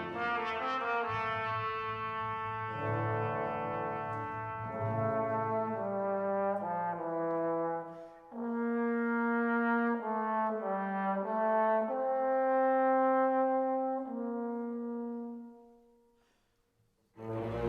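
Background music: slow, held chords on brass instruments such as French horn and trombone, fading away near the end.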